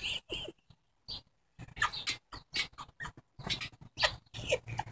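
Boxer dog making a run of short vocal sounds, after a silence of about a second near the start.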